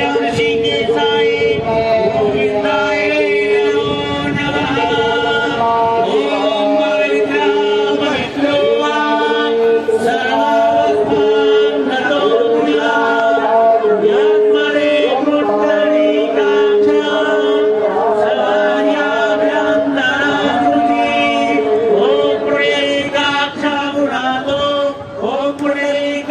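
Devotional aarti singing and chanting from the Ganga aarti ceremony: voices holding long notes in a slow, steady melody.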